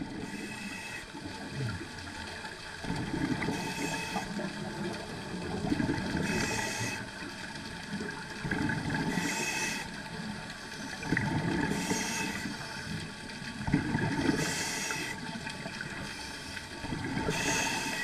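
Scuba diver breathing through a regulator underwater: a rush of exhaled bubbles followed by a short hiss of inhaling, repeating about every two and a half to three seconds.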